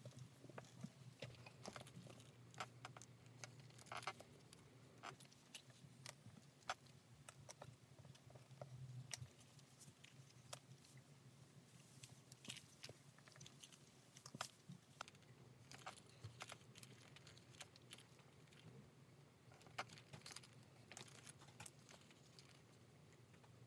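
Faint scattered clicks, taps and short rustles of hands handling a leather strap, needles and thread during hand-stitching, over a faint low steady hum.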